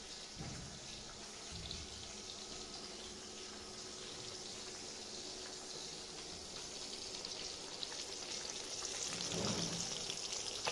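Hot oil sizzling and crackling in a wok as marinated fish pieces fry, the sizzle growing louder near the end.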